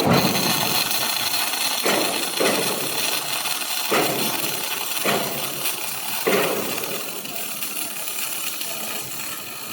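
Welding arc from a robot welding a steel industrial fan impeller: it strikes abruptly and crackles steadily with a dense hiss, swelling briefly several times.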